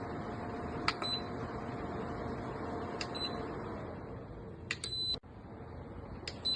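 Xiaomi Mijia DC tower fan running with a steady airflow hiss and faint hum while its buttons are pressed: five sharp clicks, each followed by a short high beep, two of them close together just before five seconds, the second beep longer.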